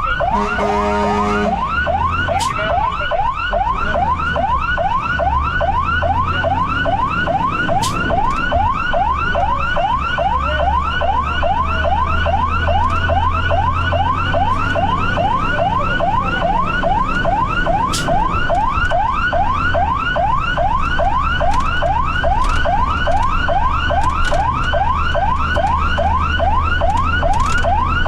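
Fire engine's electronic siren in rapid yelp mode, a fast, steady string of rising wails about three a second, over the low rumble of the truck under way. A short, steady horn tone sounds about a second in.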